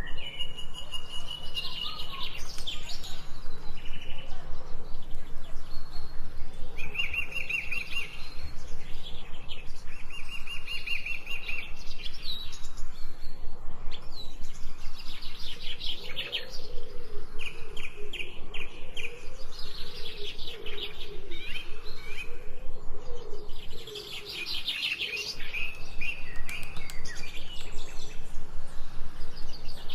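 Forest birds singing and chirping in repeated short trilled phrases, with a lower wavering call running underneath for several seconds past the middle.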